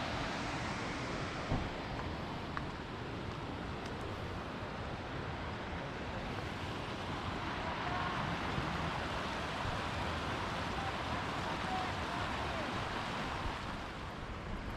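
Mountain stream rushing steadily, a continuous even hiss of flowing water.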